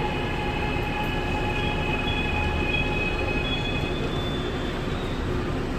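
Gwangju Metro subway train running, heard from inside the car: a steady rumble with thin, high-pitched whining tones over it.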